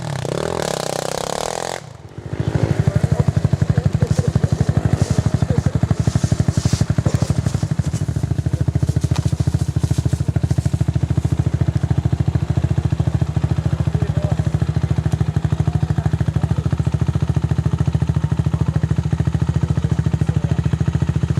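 An ATV engine running steadily at a constant speed with an even, rapid pulsing. A louder, noisier stretch in the first two seconds cuts off abruptly just before the steady running begins.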